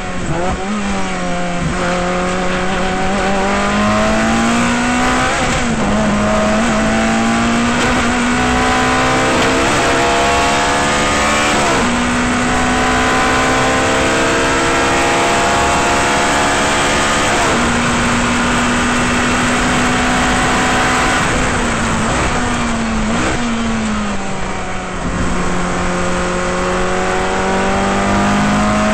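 Ferrari 430 GT race car's V8 heard from onboard, pulling hard with the pitch climbing and stepping down at a couple of upshifts. Later it lifts, with short throttle blips on the downshifts for braking, then accelerates again near the end.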